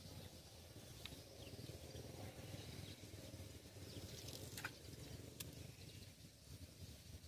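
Near silence: faint outdoor ambience, a low rumble with a few faint short ticks.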